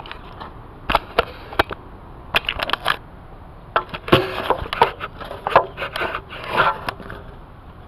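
Handling noise of a camera being moved and repositioned: an irregular run of clicks, knocks and scrapes.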